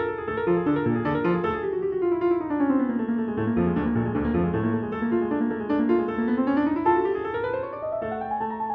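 Background piano music: a melody of quick notes that runs down to a low register around the middle and climbs back up near the end.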